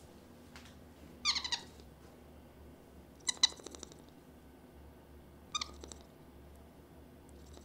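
White-faced capuchin monkey giving three short bouts of high-pitched, squeaky calls, about two seconds apart.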